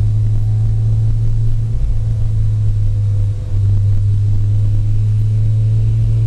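Car engine idling, its exhaust giving a steady, deep rumble with no revving.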